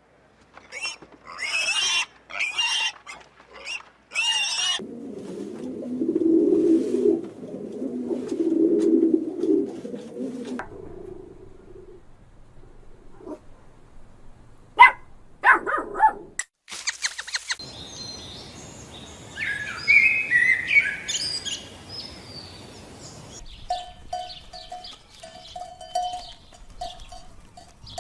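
A string of different animal calls, one clip after another. High calls in the first few seconds give way to a long low rumbling sound, then a few sharp cries, then high chirping, and near the end a short call repeated several times.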